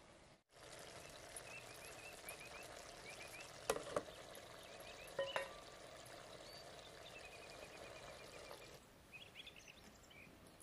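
Bottle gourd palya bubbling and hissing faintly in a clay pot, with a few sharp knocks around the middle. Small birds chirp in the background, and near the end the bubbling gives way to birdsong alone.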